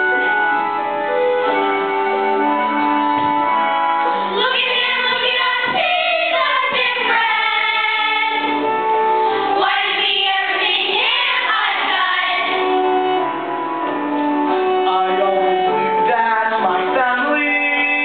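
Children's stage-musical cast singing a finale song together over instrumental accompaniment. The voices come in about four seconds in, drop out for a few seconds past the middle while the accompaniment carries on, and return near the end.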